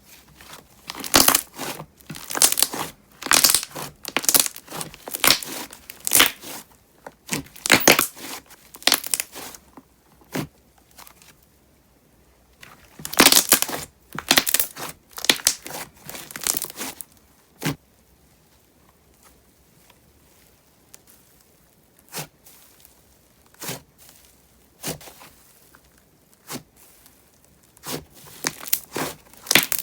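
Thick, glossy slime being squeezed and pressed by hand, giving bursts of crackling bubble pops, with a quieter pause of a few seconds about two-thirds of the way through.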